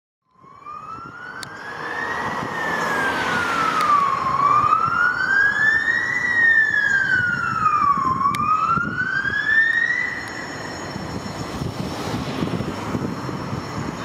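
Fire engine siren on a slow wail, the pitch rising and falling about every four seconds, until it cuts off about ten seconds in. After that only the low noise of the truck and road traffic is left.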